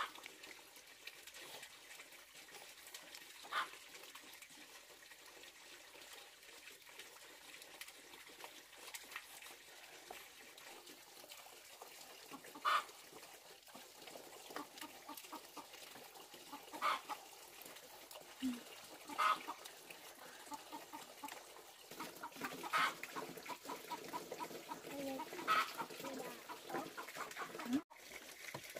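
Chickens clucking now and then, busier over the last several seconds.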